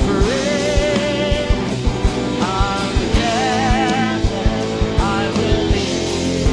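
A song with a singer, with a wavering sung melody over a steady drum beat.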